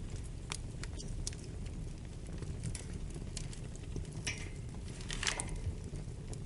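Wood fire crackling in a fireplace: a steady low rumble of flames with scattered sharp pops, and two longer crackling bursts about four and five seconds in.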